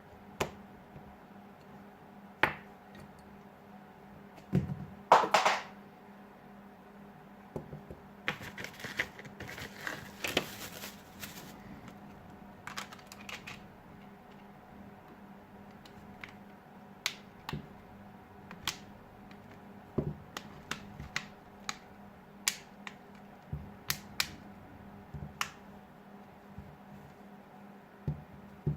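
Scattered small clicks and taps, with a brief scraping rustle near the middle, from a smartphone and small repair tools being handled on a work surface, over a faint steady hum.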